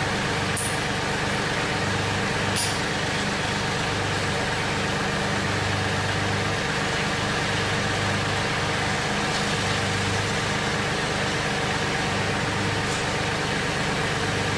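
Mahindra 1526 tractor's three-cylinder diesel engine running steadily at a low idle, with two sharp clicks in the first few seconds.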